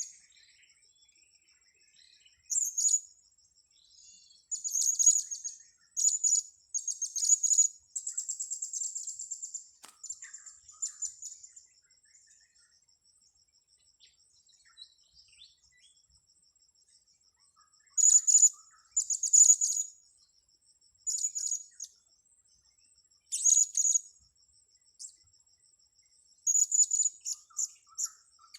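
Blue-crowned hanging parrots (serindit) calling: clusters of short, very high-pitched chirps, with a pause of several seconds in the middle.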